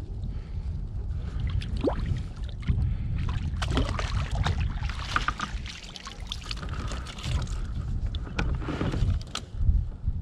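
Wind noise on the microphone, with water splashing and the rustle and clatter of a landing net as a fish is netted from the water and lifted aboard a kayak.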